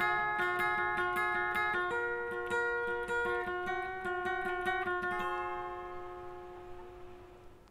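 Background music: a run of picked notes over a held chord, ending about five seconds in on a last chord that rings on and fades away.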